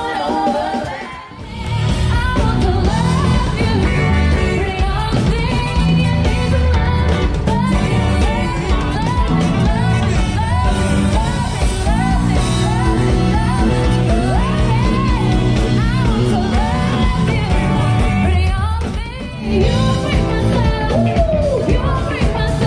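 Live band playing upbeat pop with several singers over bass, drums and guitar. The music dips briefly about a second in and again near the end.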